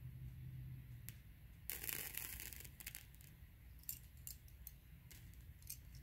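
Burning wax candle crackling: a brief sputtering crackle about two seconds in, then scattered faint pops and clicks from the flame.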